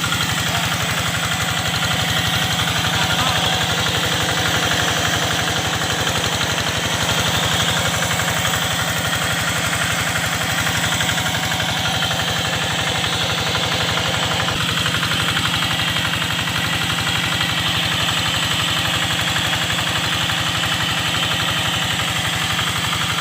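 The Kubota single-cylinder diesel engine of a G3000 hand tractor runs steadily at a constant speed, powering the irrigation.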